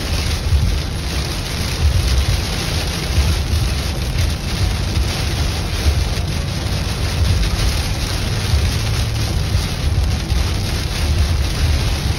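Heavy rain pelting the roof and windshield of a moving car, heard from inside the cabin over a steady low rumble of road and wind noise.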